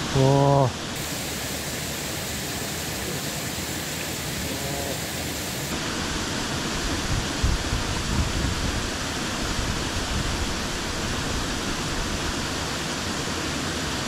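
Creek water pouring over a small concrete weir into the pool below, a steady rushing. A brief loud voice-like hum sounds in the first second.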